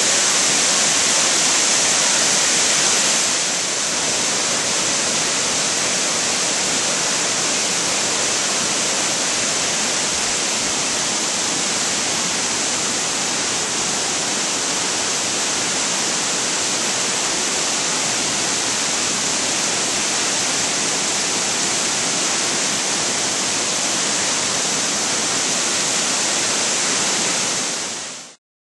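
Amicalola Falls, a tall mountain waterfall, rushing down its rock cascades: a loud, steady hiss of falling water. It drops a little a few seconds in and fades out at the very end.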